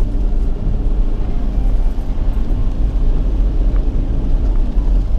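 Car driving on a wet road, heard from inside the cabin: a steady low rumble of engine and tyre noise.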